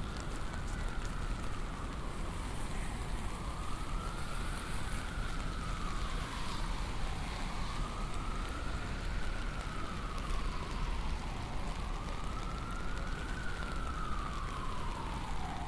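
Emergency vehicle siren on a slow wail, its pitch rising and falling about every four seconds, over steady rain and street noise.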